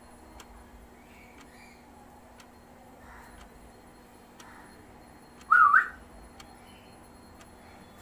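Faint short chirps from a tame male cockatiel held in the hand, and about five and a half seconds in one short, loud whistle that rises with a wiggle.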